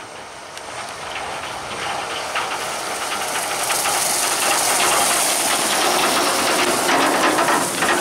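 Fendt 720 Vario tractor's six-cylinder diesel running under way, towing a twin-axle grain trailer over stubble. It grows louder over the first four seconds as it approaches, then holds steady with hissing tyre and trailer noise and a rattling clatter near the end.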